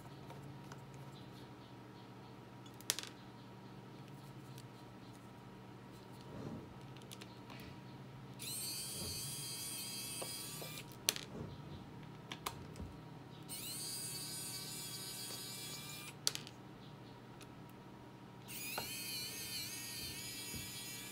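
Xiaomi Mijia electric precision screwdriver running in three bursts of two to three seconds each, a high-pitched motor and metal-gearbox whine, as it turns screws out of a hard drive's case. A few sharp clicks come between the runs.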